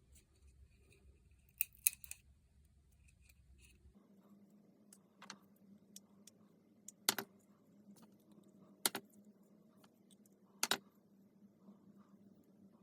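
A few sharp clicks of small hard objects being handled, over a faint steady hum that comes in about four seconds in.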